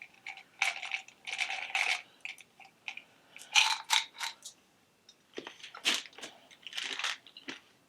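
Small hard-shelled fruit candies rattling out of a plastic tube, then crunched and chewed: a series of short crackling, rattling noises about a second apart.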